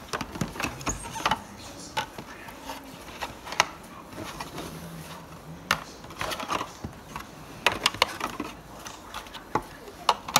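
Hard white plastic panels of an IKEA BYGGLEK LEGO storage box being handled and lifted out of their cardboard packaging: irregular sharp clicks and knocks as the pieces clack against each other and the box.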